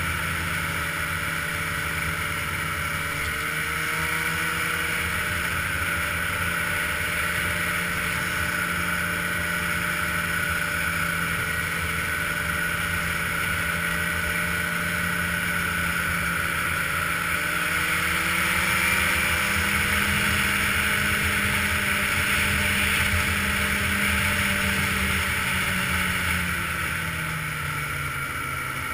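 Ski-Doo touring snowmobile engine running steadily at trail-cruising speed, heard from the rider's seat. Its pitch wavers, rises a little past the middle and drops near the end as the sled eases off.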